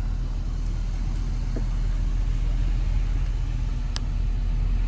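Car engine and road rumble heard from inside the cab as the vehicle moves slowly forward, steady and low, with a faint click about four seconds in.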